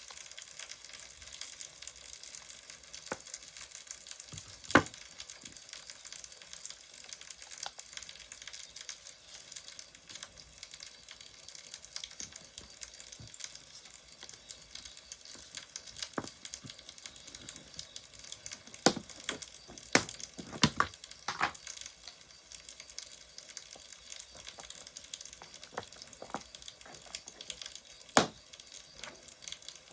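Wood fire crackling: a steady hiss with scattered sharp pops, several of them close together about two-thirds of the way through.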